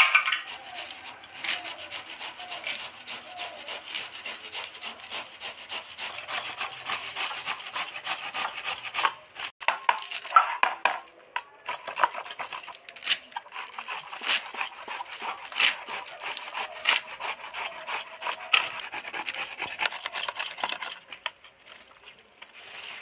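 Rapid, rhythmic scraping strokes of a white radish being grated on a flat steel grater, mixed with spinach leaves being sliced on a boti (curved floor blade). The strokes stop about two seconds before the end.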